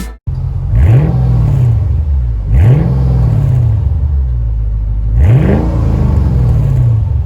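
Mercedes SL55 AMG's supercharged 5.4-litre V8 exhaust, idling and revved three times, each rev climbing in pitch and falling back to idle.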